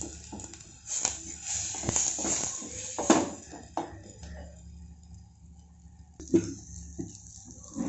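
Wooden spatula stirring oily masala in a stainless steel pot, scraping and knocking against the metal, busiest over the first few seconds and then quieter with a few single clicks.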